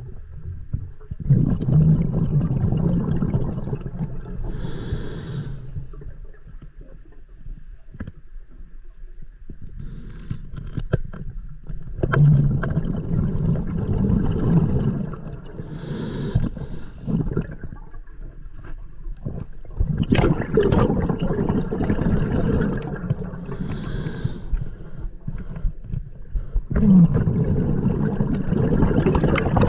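Scuba diver breathing slowly through an open-circuit regulator underwater, about one breath every seven or eight seconds. Each brief hissing inhalation is followed by a longer rumble of exhaled bubbles, four in all.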